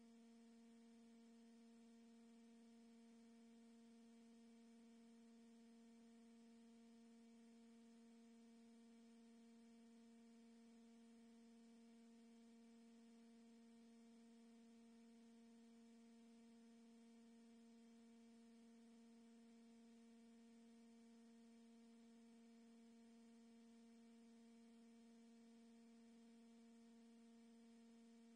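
Near silence with a faint, steady electrical hum: a low tone and a weaker one above it, unchanging throughout.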